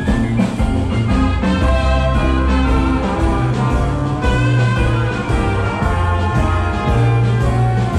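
A traditional jazz band playing, with brass instruments over strong bass notes.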